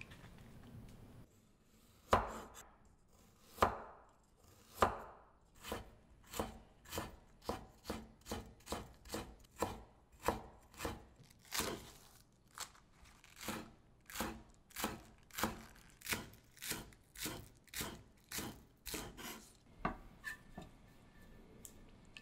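Kitchen knife chopping green onions and ginger on a wooden cutting board. A few spaced strokes come first, then steady chopping at about two strokes a second, which stops about 20 seconds in.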